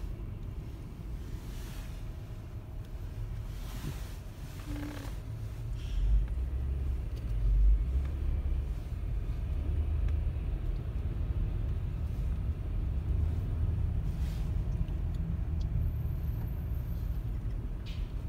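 Low rumble of a car in motion heard from inside the cabin, growing louder about six seconds in.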